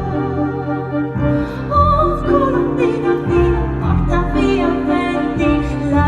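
Live musical theatre performance: a high singing voice with vibrato over an orchestra playing held chords.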